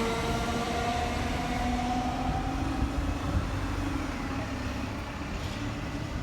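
Train moving along the station platform, its wheels and running gear giving a steady rumble with a faint motor whine slowly shifting in pitch; the sound gradually fades.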